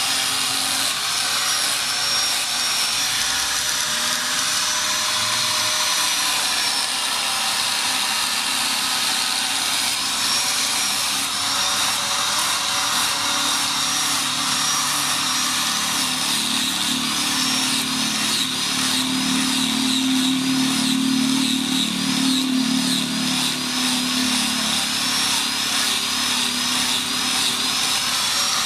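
Angle grinder with an abrasive disc grinding the steel head of a ball peen hammer held in a vise. The motor runs steadily with a high whine that dips and recovers over and over as the disc is pressed on and eased off, most in the second half.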